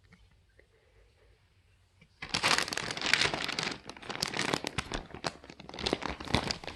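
Crinkling and rustling that starts suddenly about two seconds in and goes on as a dense run of quick crackles.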